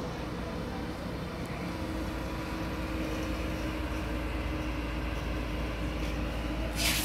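Excavator's diesel engine running steadily, a low rumble; a steady hum joins it and it grows a little louder about two seconds in.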